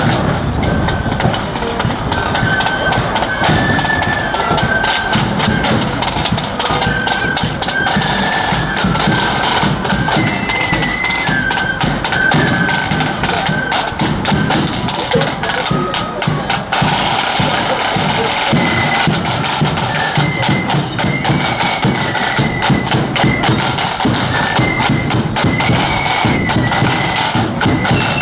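Marching flute band playing a tune: a high melody of flutes over a steady beat of side drums and bass drum.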